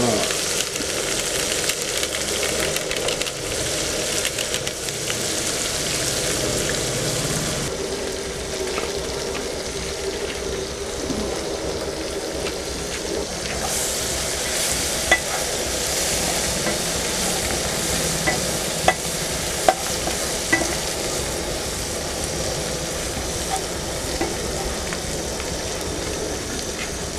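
Chopped tomatoes, green chillies and onions with bay leaves sizzling steadily in hot oil in a non-stick kadai while a spatula stirs them, with a few short sharp clicks in the second half.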